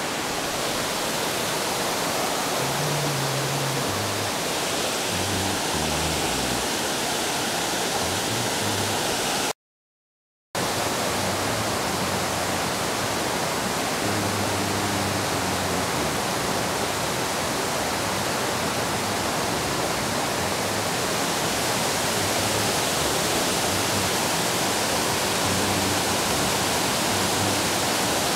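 Water rushing over an old mill dam spillway, a steady, even rush with a sudden one-second gap about ten seconds in.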